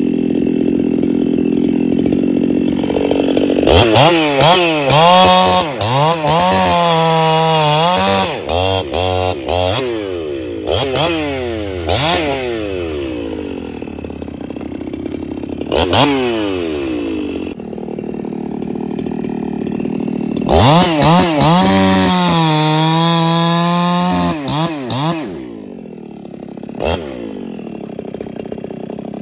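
Two-stroke chainsaw idling, then revved up and down many times, with two longer stretches held at a steady high speed before it drops back toward idle near the end.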